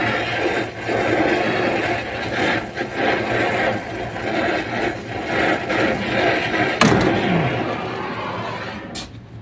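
Gas brazing torch flame hissing steadily while it heats a copper pipe joint on an air-conditioner compressor to unsweat it, with a sharp click about seven seconds in. The hiss dies away near the end.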